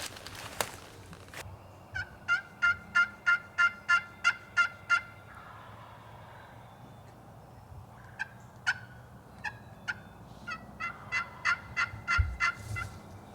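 Wild turkey yelping: two runs of short, evenly spaced yelps, about three a second, the first some two seconds in and the second starting about eight seconds in.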